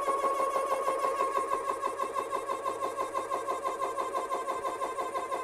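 Umarex ReadyAir portable high-pressure compressor running as it fills a PCP air rifle through its short fill hose. It makes a steady whine with a fast, even pulsing.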